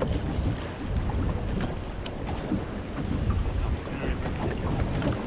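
Wind buffeting the microphone over the slap and wash of choppy sea water against a small boat's hull.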